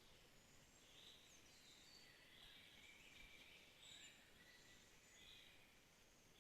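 Faint birdsong: short high chirps repeating about once a second, mixed with thin whistled notes, some gliding, over a soft hiss.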